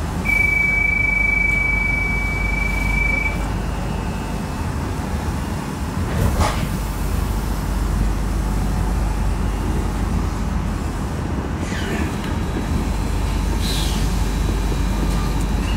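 Steady low rumble inside a double-deck commuter train carriage, with a single long high electronic beep lasting about three seconds near the start, and a few faint short falling squeals later on.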